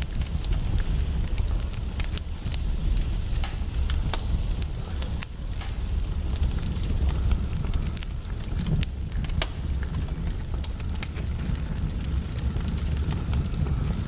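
Fireplace crackling: irregular sharp pops and snaps from burning wood over a steady low rumble.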